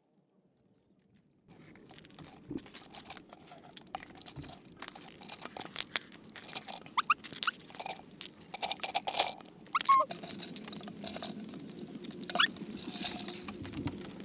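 Near silence for about a second and a half, then cooked crabs and snails being handled on a dark dish: shells clicking and crunching, with a few short high squeaks.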